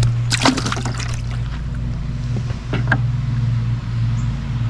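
A caught bluegill splashing and knocking as it goes into a bait bucket of water, a cluster of splashes about half a second in and two more short ones later, over a steady low hum.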